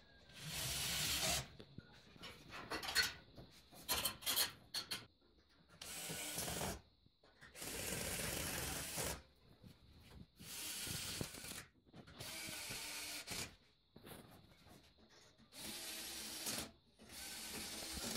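Electric drill run in short bursts of a second or two, about eight times, drilling into the steel ceiling-frame channels and the wall, with a few quick rattling clicks in between.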